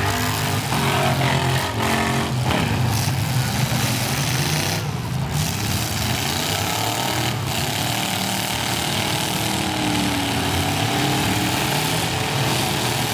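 Several demolition derby cars' engines running together, their pitch rising and falling as the cars rev and manoeuvre.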